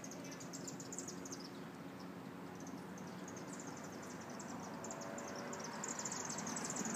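Faint, rapid high-pitched chirping, several chirps a second, that dies away about a second and a half in and starts again about three seconds in, over a low steady hum.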